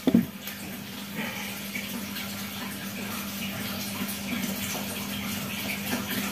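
A single sharp clack right at the start, typical of the slide of a spring-powered Glock 18-style airsoft pistol being racked to cock it. Then a steady low hum with faint hiss.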